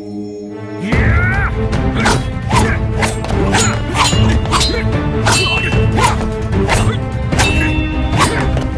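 Action-drama soundtrack: a held drone gives way about a second in to loud, hard hits repeating about twice a second, mixed with fight impact sound effects.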